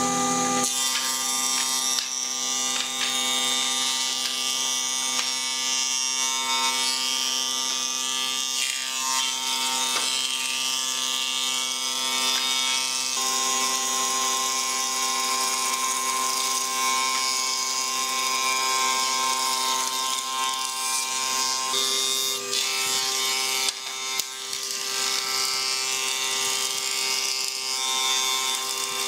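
Electric power tool motor running steadily with a whine, its pitch shifting slightly twice as the load changes.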